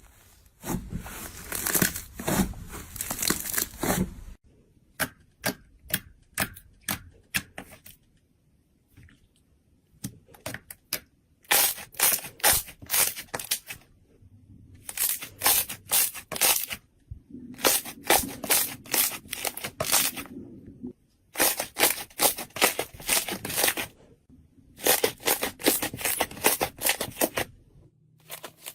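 Slime being squeezed and pressed by hand: crackling and popping clicks in runs of a few seconds, with short pauses between them.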